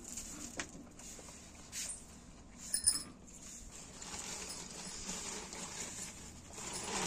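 Rhesus macaques feeding at close range: soft scattered clicks and rustles of grain and fruit pieces being handled and chewed, over a steady background hiss, with one sharper click about three seconds in.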